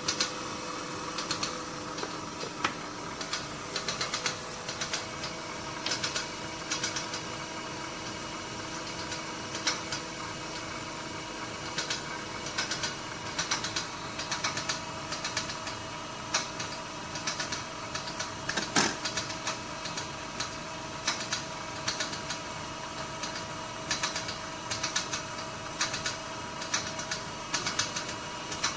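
Irregular light clicking and clatter of small metal parts being handled, over a steady electrical hum from workshop machinery, with one sharper click about two-thirds of the way through.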